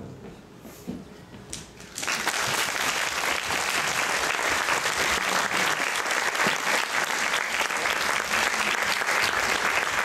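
Audience applauding in a hall, breaking out suddenly about two seconds in as the last keyboard notes die away, then steady dense clapping.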